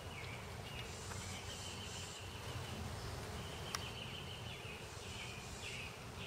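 Outdoor pond-side ambience: repeated high chirping calls from wildlife over a steady low rumble, with a single sharp click a little under four seconds in.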